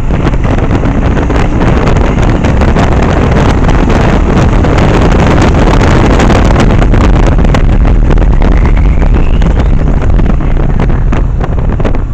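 Motorcycle engine running at road speed under loud wind rushing and buffeting on the microphone, the wind rumble and crackle covering most of the engine's low drone.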